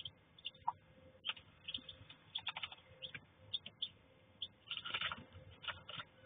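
Newly hatched ducklings peeping: short high calls in irregular bursts, thickest about five seconds in.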